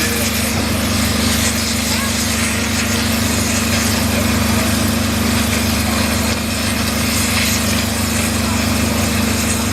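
Rail-welding equipment at work while the rail end faces are melted: a steady machine hum under a constant hiss.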